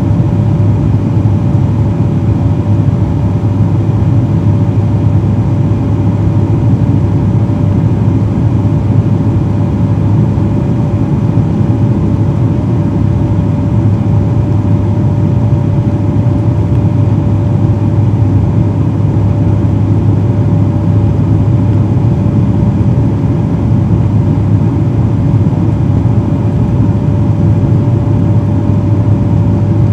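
Cabin noise of a Bombardier Dash 8 Q400 on approach: the steady drone of its Pratt & Whitney PW150A turboprops and six-bladed propellers, a deep propeller hum with a thin steady whine above it.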